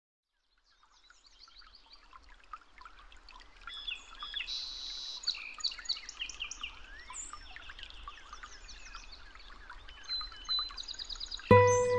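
Several birds chirping and singing, a busy mix of short chirps, quick trills and rapidly repeated notes that fades in about a second in. Background music comes in near the end, louder than the birds.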